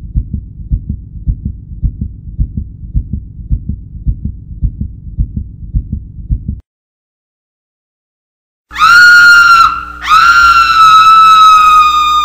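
Heartbeat: a steady, rhythmic low thumping that stops after about six and a half seconds. After a short silence, a loud, high, steady tone with one brief break comes in over a faint hum, sliding down slightly as it ends.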